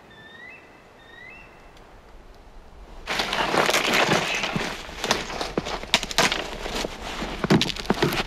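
Dry dead branches and twigs being snapped and broken off by hand, a dense crackling with sharp cracks that starts about three seconds in. Before it, a small bird chirps a few short rising notes.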